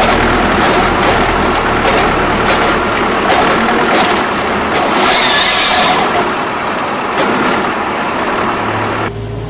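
Heavy forestry machine at work, its engine running under load with repeated knocks and clatter and a brief hissing burst about five seconds in. Near the end it gives way to a quieter, steadier engine hum.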